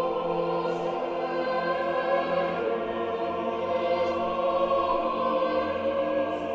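Background music: a choir holding sustained chords over a soft orchestral backing, in a solemn, epic style.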